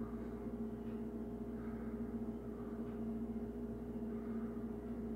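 A steady low electrical hum with two held tones, with faint soft rustles of fingers handling a small rubber model-car tire.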